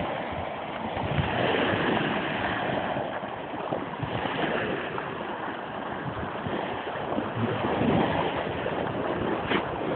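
Small waves washing onto a sandy beach, swelling and easing, with wind rumbling on the microphone.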